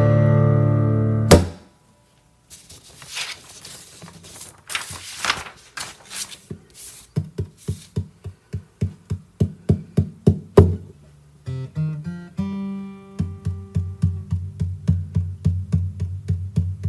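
Acoustic guitar: a held chord rings and is damped suddenly about a second in. After a short silence come a few soft knocks. Then a fingerpicked pattern of single plucked notes over low bass notes starts and runs steadily, about three notes a second, as the intro to the next song.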